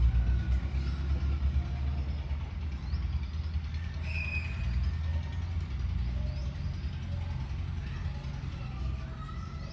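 Steady low engine rumble, with faint short high chirps scattered over it.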